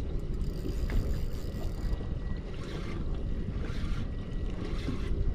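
Wind buffeting the microphone over water lapping against the hull of a small boat at sea: a steady, gusty rushing noise.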